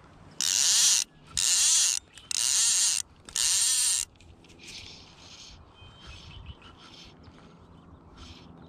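Fly reel's click-and-pawl drag buzzing in four quick pulls, each about half a second long, as fly line is stripped off the spool.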